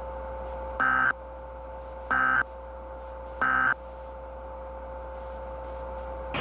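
Three short bursts of Emergency Alert System SAME data tones, about a second apart, over a steady two-note tone. The three brief bursts are the End of Message (NNNN) code that closes an alert.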